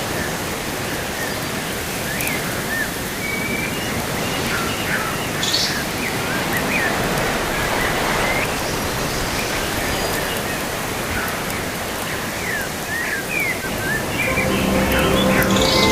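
Steady rain falling, with small birds chirping over it in short, repeated calls. Music with sustained notes comes in near the end.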